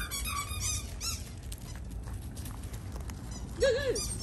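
A dog giving short, high-pitched yelping whines: a few faint ones about half a second in, then a louder one near the end.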